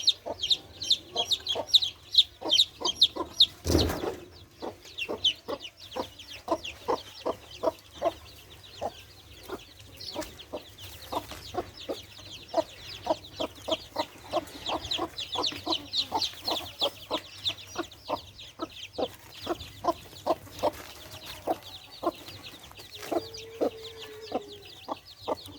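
Deshi country hen clucking over and over in a steady rhythm while her four-day-old chicks peep continuously in short high calls. A brief thump about four seconds in, and a longer drawn-out call from the hen near the end.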